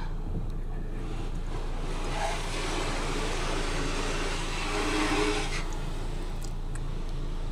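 Automatic car wash water spray hissing onto the car for about four seconds, heard from inside the closed cabin over the low steady hum of the idling engine.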